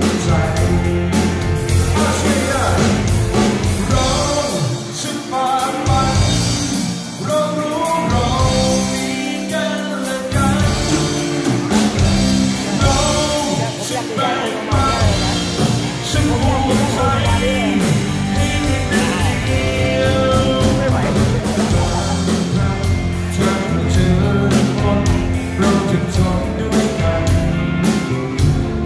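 Live rock band playing: a male lead singer sings over two electric guitars, an electric bass and a drum kit. The low end drops away for moments a few times in the first half.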